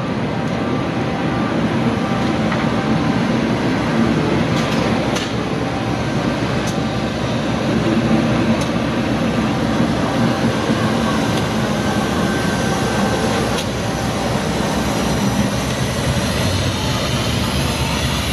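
Several diesel-electric freight locomotives running as they pass close by, a steady heavy drone of engines and rolling wheels, with a few sharp metallic clicks along the way.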